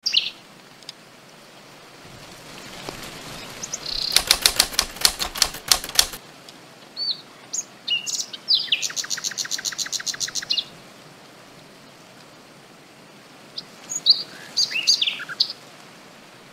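Birds: a fast run of flapping or clattering beats for about two seconds, then short chirps and a quick, rattling trill, and a few more chirps near the end, over a faint steady hiss of outdoor ambience.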